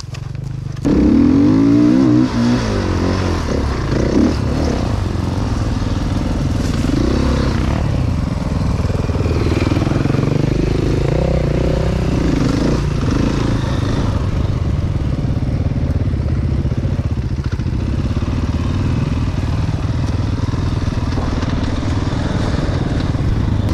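KTM dirt bike engine revving up sharply about a second in as the bike pulls away, then running under changing throttle while riding over rough sandy ground.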